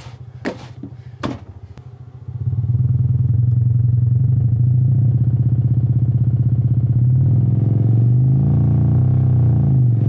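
A pair of 6.5-inch, 1.5-ohm Sony home-theater subwoofer drivers, wired in phase, start playing a loud, buzzy low tone about two seconds in, and the pitch wavers near the end. They are being overdriven hard enough to burn out a voice coil.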